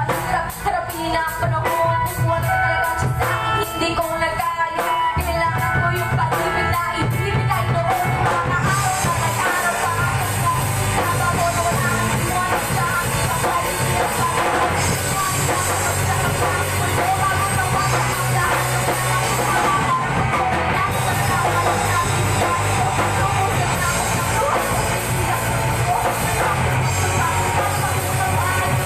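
Live band playing through a PA: electric guitars and a drum kit, with a woman singing. About nine seconds in, the playing turns fuller and denser.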